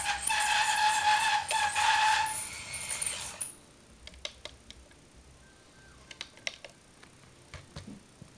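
Electric drive motor and gearing of a SIKU Control 1:32 RC Scania R620 model truck whining steadily as it drives across a tiled floor, briefly interrupted twice, then stopping about three and a half seconds in. A few faint clicks follow while the model stands still.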